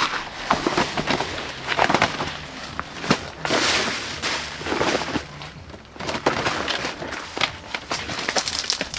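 A run of irregular knocks, snaps and rustling, with a denser rustling stretch a few seconds in.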